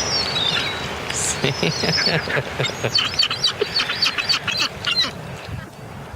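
A flock of seagulls squawking and calling over one another, densest from about a second in until near the end: the birds competing for thrown food.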